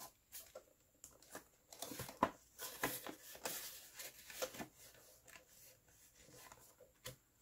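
Australian polymer banknotes and clear plastic binder envelopes rustling and crinkling as they are handled, with scattered light clicks as the binder pages are turned.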